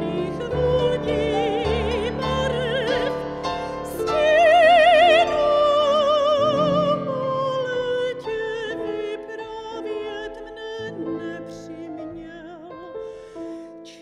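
Operatic soprano singing a classical art song with wide vibrato, over grand piano accompaniment; she swells to a loud held note about four seconds in, then sings more quietly toward the end.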